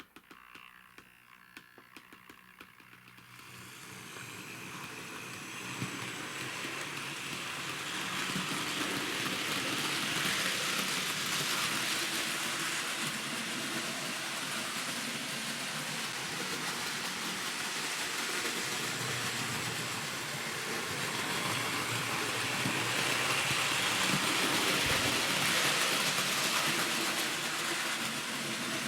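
Model train running on its track, a steady whirring rush of motor and wheels that builds up over the first several seconds and then holds, swelling slightly now and then.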